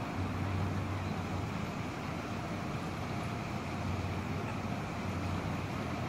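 Steady low rumble of city traffic, even throughout with no distinct events.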